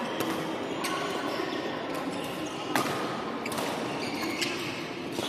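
Badminton rackets striking a shuttlecock in a rally: sharp smacks about once a second, the loudest a little past the middle. A steady hubbub of voices and play from neighbouring courts fills the hall behind them.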